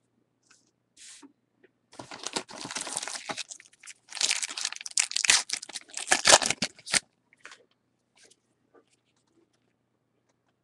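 A foil wrapper of a baseball card pack being torn open and crinkled by hand, in two spells about two seconds in and again about four seconds in, stopping near seven seconds.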